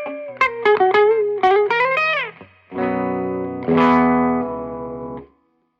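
Guild S100 Polara electric guitar played through a Peavey Bandit 112 combo amp: a quick run of single notes with string bends, then two chords struck and left ringing. The playing stops abruptly near the end.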